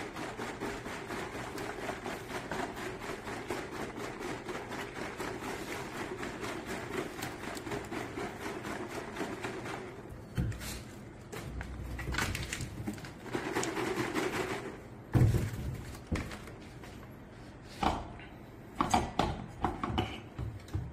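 A white plastic jug is shaken hard, a steady rapid rustling shake, for about ten seconds. Then the jug is handled and its cap unscrewed, with scattered knocks, clunks and rustles, and a steel funnel is picked up near the end.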